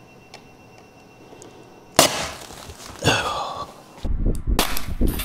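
A sudden loud crack about two seconds in, then a second burst about a second later: a LiFePO4 battery pack's cell terminals being shorted out, arcing. A low rumble follows near the end.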